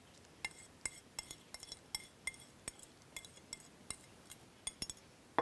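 Metal spoon clinking against a ceramic plate as spring-roll filling is scraped off it: a run of light, irregular clinks, two or three a second, with a louder clink near the end.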